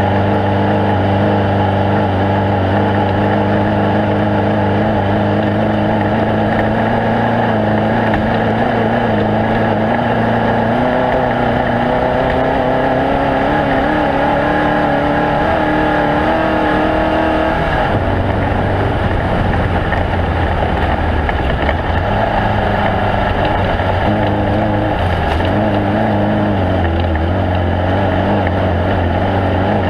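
Off-road race vehicle's engine running hard under load, its pitch climbing slowly for several seconds, then dropping and turning rougher about eighteen seconds in, over a steady rush of noise.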